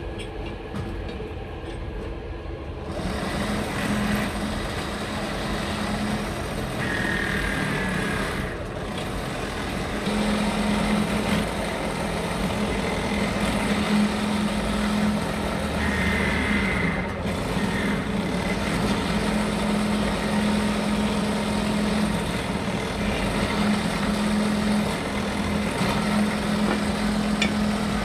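Pillar drill press starting up about three seconds in and running with a steady motor hum as its bit bores out the old rivets of a truck brake shoe, with two brief high squeals from the bit cutting.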